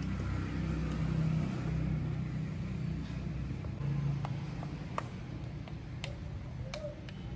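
Steady low hum of an engine running, with a few light clicks about five to seven seconds in.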